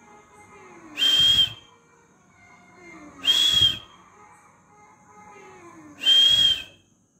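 Three short, breathy whistles, each with a thin high note, about two and a half seconds apart. Between them come faint, falling mews from a young cat.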